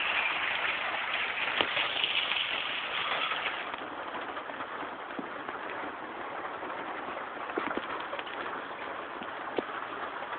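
Hail coming down steadily: a dense hiss of hailstones striking the ground, with scattered sharp ticks of single stones. The hiss eases a little about four seconds in.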